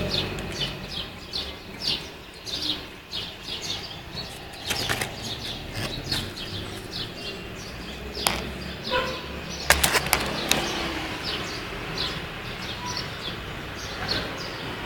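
A small bird chirping over and over, short high downward chirps about two a second. A few sharp clicks come near the middle.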